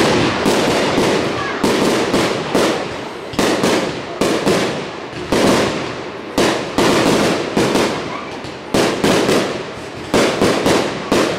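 Fireworks display going off in rapid volleys: many sharp bangs and crackles, several a second in clusters, each with an echoing tail.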